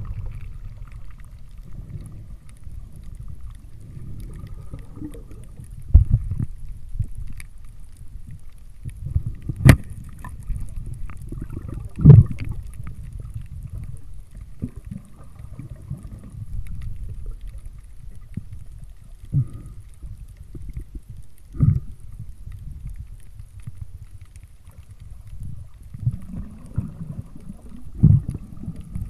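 Muffled underwater sound through a submerged camera: a steady low rumble of water, with a handful of sharp knocks, the loudest about 6, 10 and 12 seconds in and again near the end.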